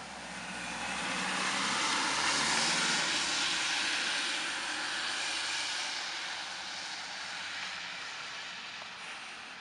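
A car passing on a wet, slushy street: tyre hiss swelling over the first two seconds or so, then slowly fading away as it drives off.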